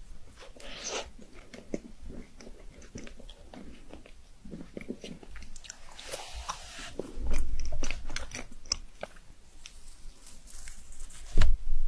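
Close-up eating of chocolate: repeated bites with crisp snapping crunches, then wet chewing. Two loud low thuds, one about seven seconds in and one near the end, stand out above the eating.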